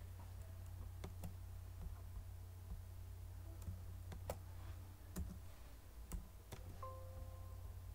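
Faint, scattered clicks of a computer mouse and keyboard, about seven in all, as spreadsheet rows are selected and cleared. A steady low hum runs underneath, and a faint held tone sounds near the end.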